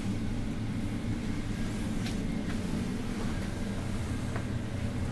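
A steady low hum, with a couple of faint ticks, one about two seconds in.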